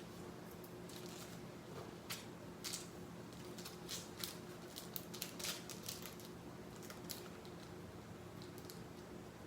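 Light, scattered scratches and ticks of a pencil marking the side of a fingerboard press mold and of a paper template being handled, bunched in the middle few seconds. A steady low hum runs underneath.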